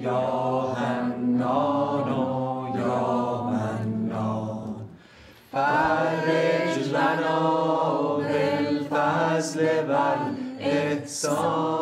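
Chanting in long, sustained melodic phrases, a devotional chant; it breaks off briefly about five seconds in, then a second phrase follows.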